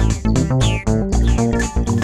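Background music with a steady beat and a strong bass line.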